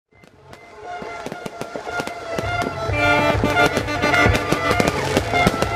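Fireworks display with rapid, dense bangs and crackling pops over music, fading in over the first few seconds.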